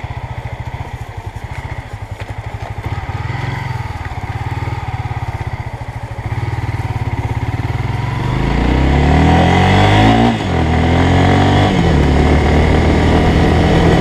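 Honda CB Twister motorcycle's single-cylinder engine running slowly with an even pulse, then accelerating from about eight seconds in, the revs rising, dipping briefly around ten seconds in, and rising again to a steady, louder run.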